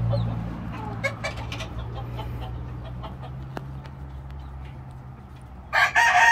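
Gamecocks clucking faintly in their cages over a steady low hum, then near the end a rooster lets out a loud call.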